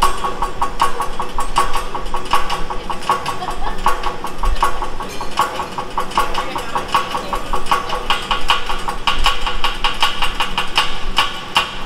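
Metal spatula chopping and tapping rapidly on a steel hibachi griddle, a fast rhythm of sharp, ringing metal clicks, about five a second.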